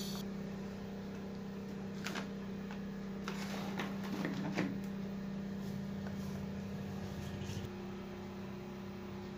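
Steady low electrical hum, with a few light clicks and knocks about two seconds in and again around the middle.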